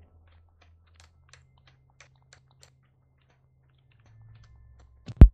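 Faint, scattered computer keyboard keystrokes as pad names are typed in, then a single loud, short low thump near the end.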